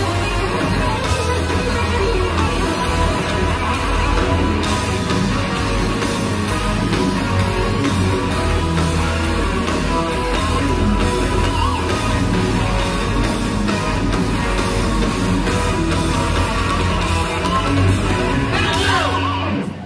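Live heavy metal band playing at full volume: distorted electric guitars over heavy bass and drums, instrumental, with a sliding guitar sweep near the end.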